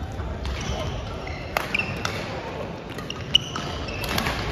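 Badminton rally: sharp cracks of racket strings hitting the shuttlecock, the sharpest a little over three seconds in, with short shoe squeaks on the wooden gym floor. Voices murmur in the hall behind.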